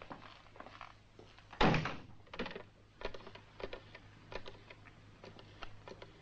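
A door shuts with a single heavy thud about a second and a half in, followed by a string of light clicks and knocks from a desk telephone being picked up and handled.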